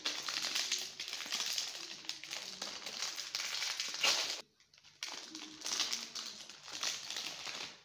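Plastic snack packet crinkling and crackling as it is handled and squeezed, with the snacks inside crunching. The sound cuts out suddenly for about half a second around four and a half seconds in, then resumes.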